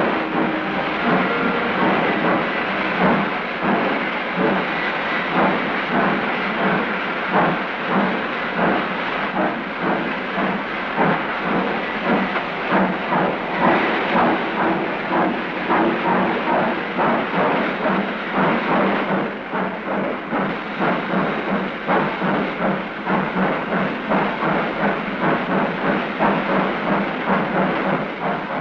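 Union Pacific 9000-class 4-12-2 three-cylinder steam locomotive working a train: a rhythmic run of exhaust chuffs over a steady hiss of steam, the beats coming a little faster later on.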